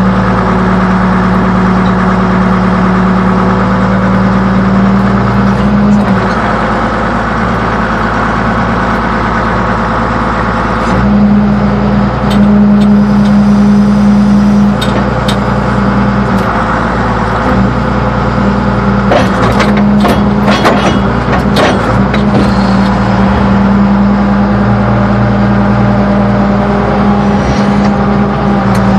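Excavator engine running steadily under load while digging; its note drops for a few seconds after about six seconds in, then comes back strong. A quick run of knocks and clanks comes about two-thirds of the way through.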